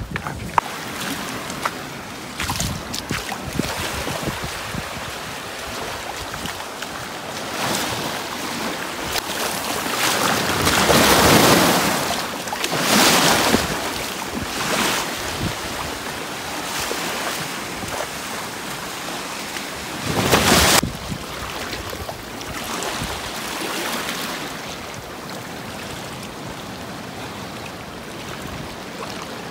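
Surf and shallow water washing over a rocky shore, with wind buffeting the microphone. It swells louder a couple of times partway through, with one short, loud gust-like surge around two-thirds of the way in.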